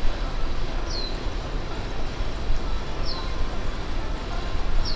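Outdoor street ambience: a steady rumble of traffic with wind noise on the microphone. Over it, a bird gives a short, high, falling chirp four times, a couple of seconds apart.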